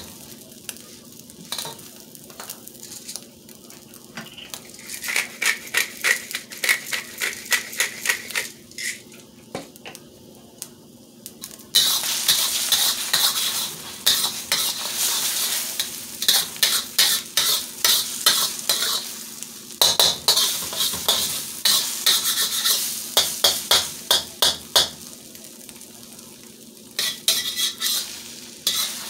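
Egg frying and sizzling in a hot hammered steel wok while a metal spatula scrapes and clinks against the pan in quick repeated strokes. The sizzle becomes much louder about twelve seconds in.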